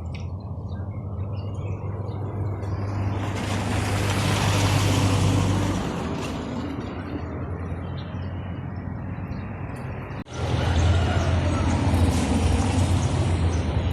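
Motor vehicle engine running with road noise. A louder rush of noise swells and fades in the middle. The sound breaks off suddenly about three-quarters of the way through, then a similar engine hum resumes.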